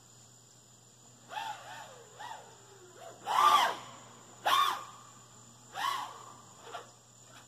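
An animal calling outdoors: about six short, pitched cries, each rising and falling, roughly a second apart. The two in the middle are the loudest.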